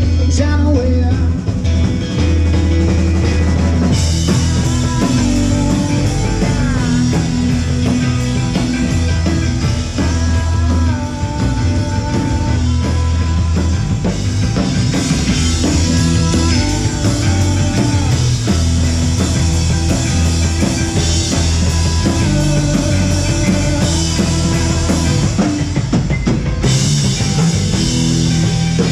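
Live rock band playing through PA speakers: a drum kit keeping a steady beat under guitars.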